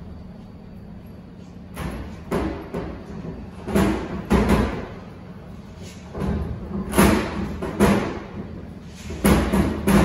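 Cloth wiping a glass display counter in about five separate rubbing strokes, over a steady low hum.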